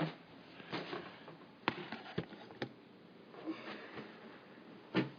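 A few light, irregular clicks and taps from handling objects close to the microphone, about six in all, with the last loud one near the end.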